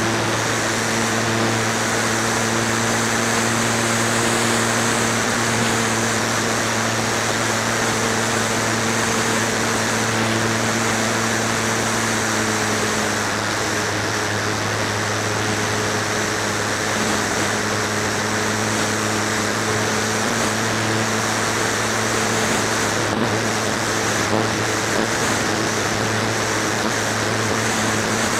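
Flyzone Calypso RC plane's electric motor and propeller running at a steady pitch, heard from a camera mounted on the airframe, over a rush of air.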